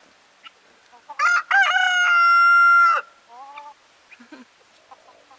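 A rooster crowing close by: one crow of about two seconds that rises and ends in a long held note. A shorter, quieter call follows right after, with faint clucking from the flock around it.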